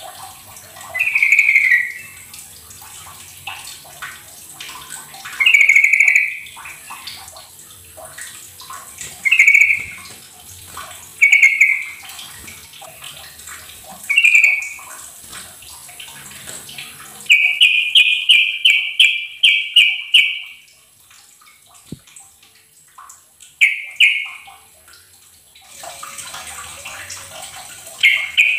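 Yellow-vented bulbul (trucukan) calling in short bubbly phrases every few seconds, with a quick run of about eight notes a little past the middle. Steady running water trickles underneath.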